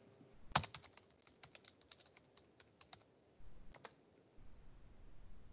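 Typing on a computer keyboard: a quick, faint run of about fifteen keystrokes over two and a half seconds, then two more strokes about a second later.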